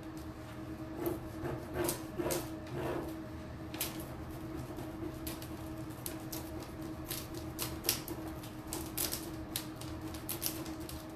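Fingertips rubbing and pressing a decor transfer's plastic backing sheet, giving irregular crackling clicks as the transfer is burnished down. A steady hum runs underneath.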